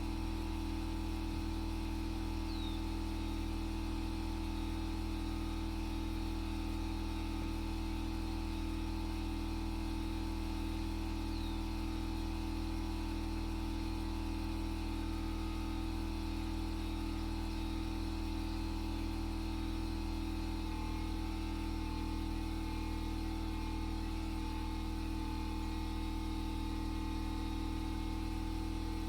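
Steady machine hum, a motor or engine running evenly and unattended, with a faint chirp twice.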